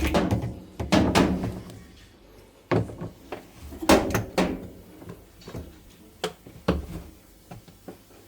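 Irregular knocks and clatters of washing machine parts being handled while its suspension springs are replaced, with the loudest hits near the start and about four seconds in.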